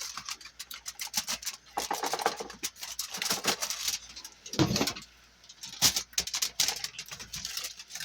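An oven being opened and a baking pan pulled out on its rack: a run of light clicks and rattles, with one heavier knock about four and a half seconds in.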